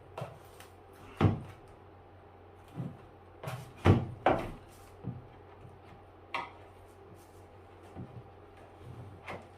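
Irregular knocks, clicks and scrapes as the old rubber door gasket is worked out of an Indesit refrigerator door's plastic liner, slow, hard going. The sharpest knocks come about a second and four seconds in.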